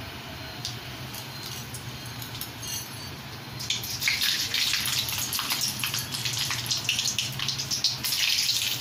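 Whole garam masala spices (green cardamom, cloves, cinnamon stick) frying in hot oil in an aluminium kadai. There is a faint sizzle over a low steady hum at first, then a handful more spices hits the oil about three and a half seconds in and it breaks into a louder crackling sizzle.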